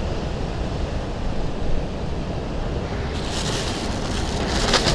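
Ocean surf washing over rocks, with wind buffeting the microphone. From about three seconds in, a plastic bag crinkles as it is handled.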